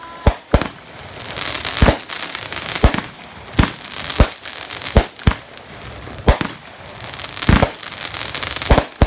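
Aerial fireworks going off: about a dozen sharp bangs at uneven intervals, with a hissing crackle between them.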